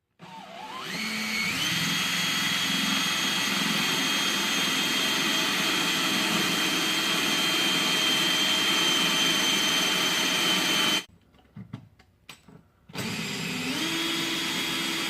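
Electric drill motor spinning up with a rising whine and running steadily for about ten seconds. It stops, then spins up again about two seconds later.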